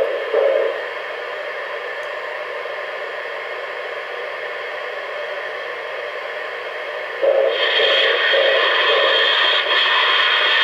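O-gauge model train running on a layout, with a steady electronic hiss from its sound system. A rhythmic pulsing sound comes at the very start and returns louder about seven seconds in, when the hiss also gets louder.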